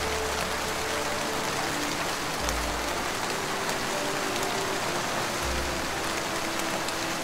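Rain-like hiss layered over slow, soft ambient music: held tones and long deep bass notes that come about every three seconds.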